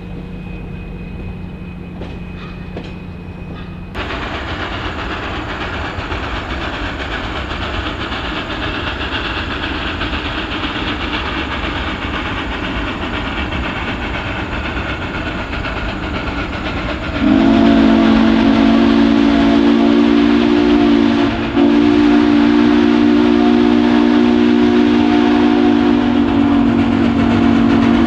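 Steam locomotive whistle blowing a long, loud chord of several tones, with one brief break in the middle. Before it there is a steady rushing noise.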